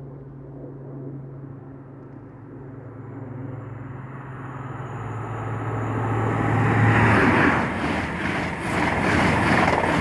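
A Great Western Railway HST (InterCity 125) approaching at speed and running through the station without stopping. A steady low power-car engine note grows louder and cuts off about seven seconds in as the leading power car passes. Then comes the loud rushing and rattling of the coaches going by.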